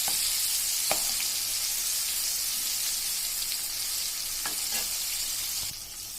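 Breaded chicken pieces deep-frying in hot oil with a steady sizzling hiss. A few light clicks sound about a second in and twice around four and a half seconds in, and the sizzle drops a little near the end.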